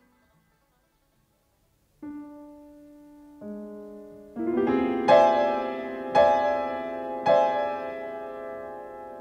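Piano music. After about two seconds of silence, single held notes enter one after another and build into a chord, then three loud chords are struck about a second apart and left ringing.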